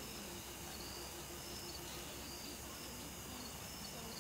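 Faint insect chirping: a high trill repeating in short pulses, over a faint low hum.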